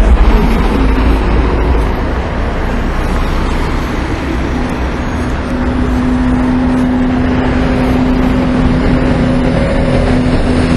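Car road noise: a steady low rumble and hiss, with a steady humming tone joining about halfway through.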